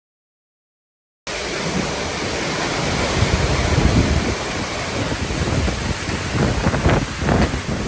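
Dead silence for about a second where one clip ends, then the hurricane-force wind of a hurricane's trailing eyewall blowing hard with rain, buffeting the microphone. Rougher gusts hit near the end.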